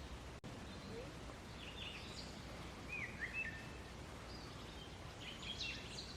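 Faint bird calls: short high chirps and a few quick downward-sliding whistles in clusters about two, three and five and a half seconds in, over a steady low background noise.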